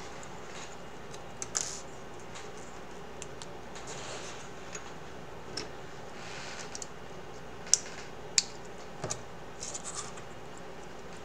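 Scattered small clicks and taps with faint rustling, from cables and plastic cable clips being handled on a VR headset strap; the sharpest clicks come in the second half, a few close together.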